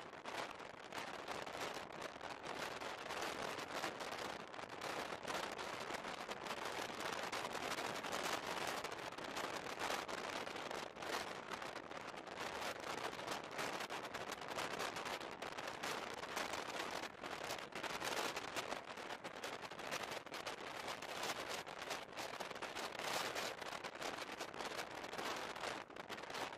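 Running noise of a passenger train heard from inside the carriage: a steady rush of wheels on rails with a dense, irregular crackle of knocks and rattles.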